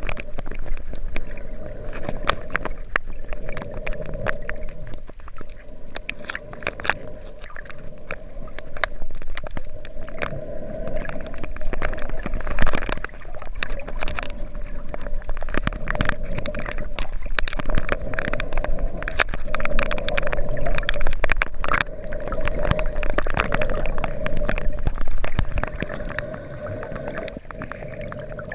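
Underwater sound picked up by a camera held below the surface while snorkeling: a muffled wash of water with many sharp clicks and crackles, and a wavering mid-pitched hum that swells every four seconds or so.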